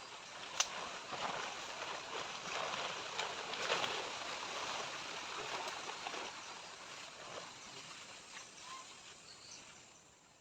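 A gust of wind rushing through the forest trees, swelling over the first few seconds and then dying away, with one sharp click about half a second in.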